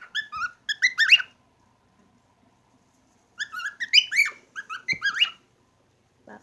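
Cockatiels chirping and whistling in quick runs of short notes that rise and fall in pitch: one run at the start, a pause of about two seconds, then a second run.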